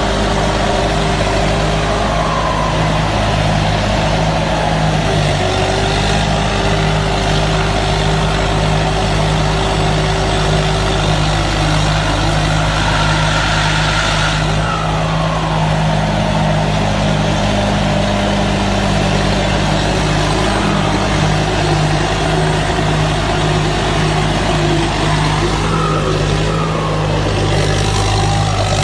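Engine of a rice combine harvester running steadily, its pitch rising and falling a little at times.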